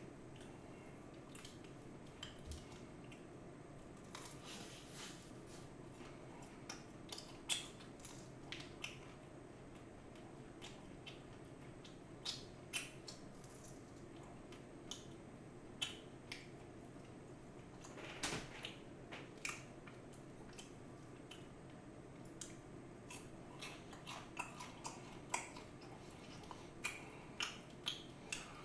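Close eating sounds: biting and chewing seasoned fried chicken and tearing it apart by hand, with irregular small crisp clicks and crunches over a steady low hum.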